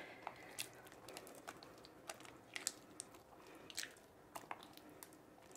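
Faint, irregular wet clicks and pops of hands kneading and squishing a large batch of Elmer's school-glue slime in a glass bowl, the slime still part-way through being activated.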